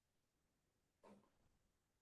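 Near silence: room tone, with one very faint short sound about a second in.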